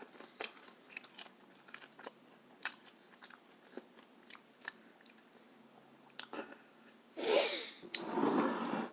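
Someone chewing a crunchy snack close to the microphone: scattered small crunches, then a louder stretch of crunching near the end.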